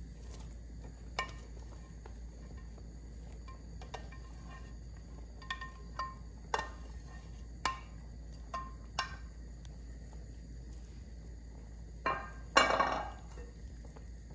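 A slotted spatula taps and scrapes grated carrots out of a glass dish into a steel pot of milk and rice, giving scattered light clinks. A louder scraping clatter comes near the end.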